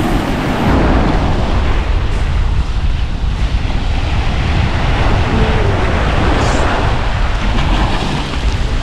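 Sea waves washing onto the beach, with wind buffeting the microphone as a steady low rumble.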